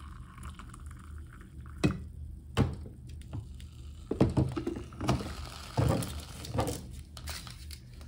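A glass coffee carafe handled and set back onto a Ninja drip coffee maker's warming plate: several light knocks and clinks of glass and plastic, about a second apart, over a low steady hum.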